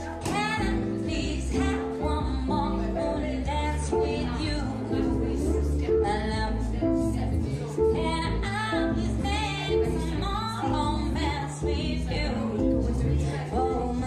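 Live band: a woman sings a melody into a microphone, accompanied by a plucked upright double bass and a guitar.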